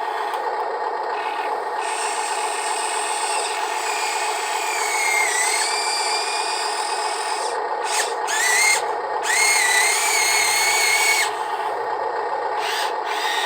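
Radio-controlled construction vehicle's small electric motors and gearboxes whining, the pitch gliding up and down as the motors change speed and stopping and starting several times, over a steady gear hum. The whine is loudest from about 9 to 11 seconds in.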